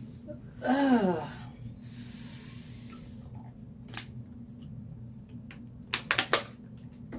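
A person's short voiced sigh falling in pitch, followed by a breathy hiss of about a second and a half. A single click comes midway, and a quick cluster of sharp clicks near the end is the loudest sound, all over a steady low hum.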